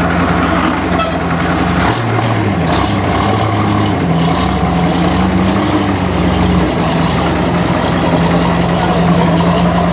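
Antique heavy truck engine running close by as the truck moves slowly off. The engine note is steady and loud, dips and shifts in pitch about two seconds in, and settles again near seven seconds.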